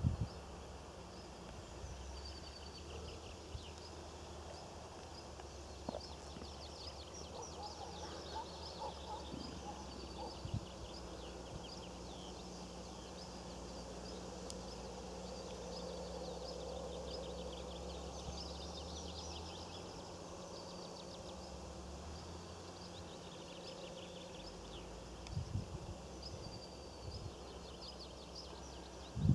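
Open-country ambience: many small birds chirping and twittering on and off, over a faint low steady hum.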